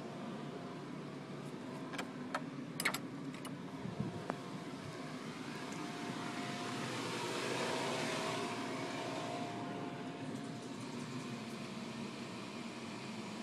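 Steady outdoor background hum with a vehicle passing, swelling up about halfway through and fading again. A few sharp clicks sound in the first few seconds.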